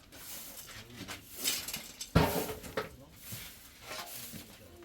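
A few scattered knocks and clatters of hard objects being handled, the loudest about two seconds in.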